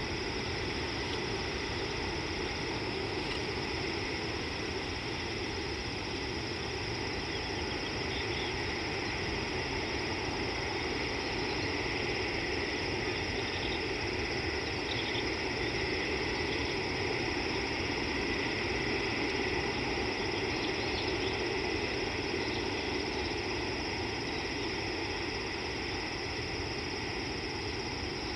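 Steady outdoor background noise: a continuous hum and hiss that doesn't change, with a few faint short chirps.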